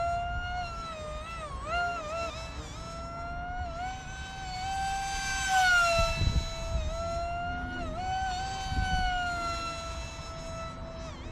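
Micro electric RC jet's motor whining in flight, its pitch rising and falling as the throttle changes and the plane passes by, with a swell about six seconds in. Wind gusts rumble on the microphone.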